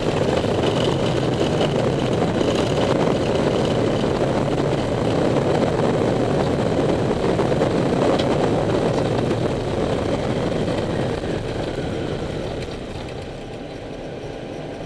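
Airbus A319 rolling out on the runway after touchdown, heard from the cockpit: a loud, steady rush of engine and rolling noise that eases off about twelve seconds in as the aircraft slows.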